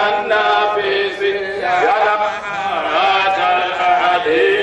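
A solo voice chanting an Arabic devotional ode to Allah (a qasida), with long, wavering held notes and short pauses between phrases.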